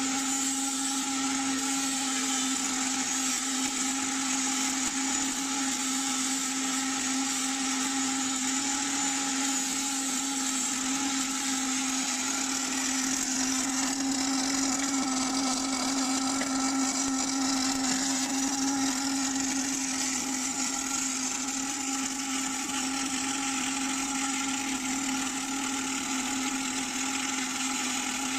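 Automatic circular seam welder welding the circumferential seam of a gas-tank shell: a steady arc hiss with a constant electrical hum underneath, unchanging throughout.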